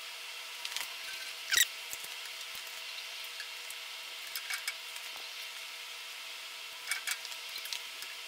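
A single short, high squeak rising in pitch about a second and a half in, over a faint steady hum, with a few light clicks and ticks scattered through.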